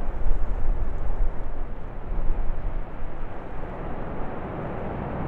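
Basaltic lava fountain erupting from a spatter cone: a continuous deep, rushing rumble of escaping gas and spattering lava that surges and eases in loudness, a little quieter in the second half.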